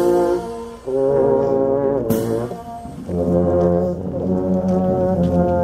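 Brass band playing a slow funeral march in long held chords, phrase by phrase, with short breaks between phrases.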